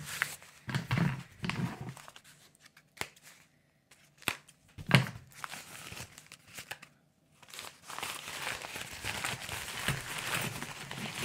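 Newspaper wrapping being torn and crumpled open from around a bundle of jaw harps: irregular crackling and rustling of paper, with a sharp click about five seconds in.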